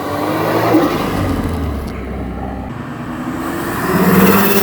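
Car engine running close by and revving, its pitch shifting as it accelerates, loudest about a second in and again near the end.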